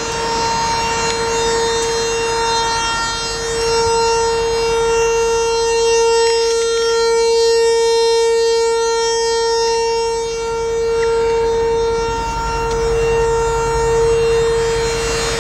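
A loud, steady whine at one unchanging pitch, with many overtones, coming from inside a switched-off Mercedes-Benz E550. It is an unexplained fault: the noise starts without warning with the car off, cannot be turned off, and stops on its own after about 20 minutes.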